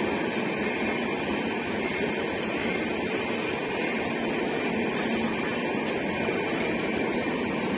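Passenger train of LHB coaches rolling past on the line beside the platform: a steady, even rumble and rush of wheels on rail, with a few faint clicks.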